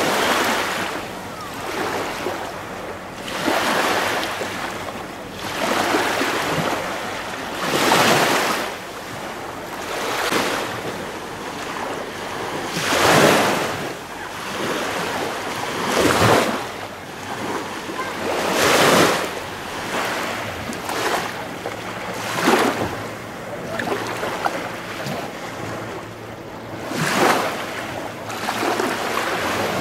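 Small waves washing and lapping, rising and falling in swells about every two to three seconds.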